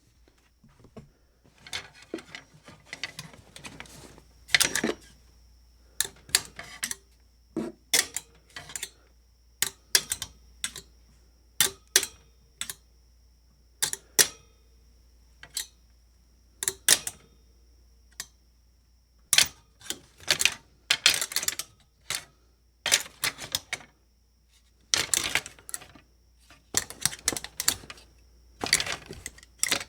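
A hanger clacking and rattling against metal: irregular sharp metallic clicks, some single and well spaced, others in quick rattling clusters.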